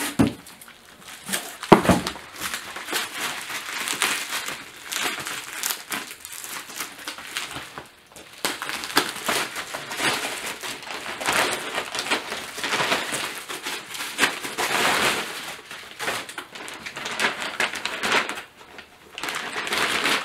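Bubble wrap and plastic packaging rustling and crinkling as it is pulled out of a cardboard box and unwrapped, in irregular bursts. A sharp knock about two seconds in.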